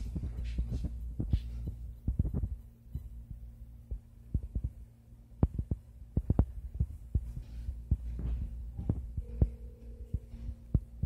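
Steady low machine hum from the laser-suite equipment, with scattered irregular soft thumps and clicks.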